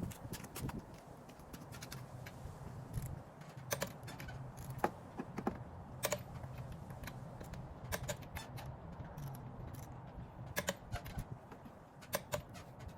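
Torque wrench tightening wheel lug nuts to 70 lb-ft: sharp clicks and metal clinks at irregular intervals.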